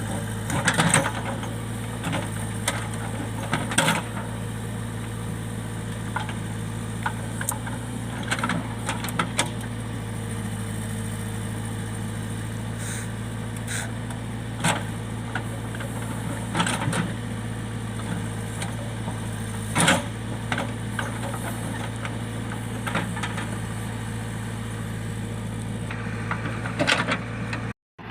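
JCB backhoe loader's diesel engine running steadily, with intermittent sharp knocks as the machine works rocks and stones out of the ground.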